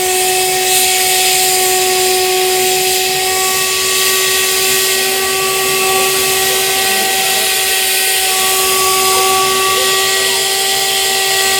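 Homemade jet engine rig running with a steady, high-pitched whine over a rush of air.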